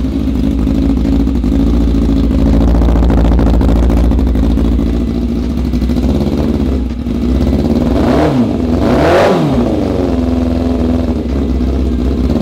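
Kawasaki ZX-6R 636 inline-four engine idling unevenly, blipped a few times with the throttle past halfway. It sounds like a twin rather than a four, the sign of cylinders misfiring, which the owners put down to spark plug leads fitted in the wrong order.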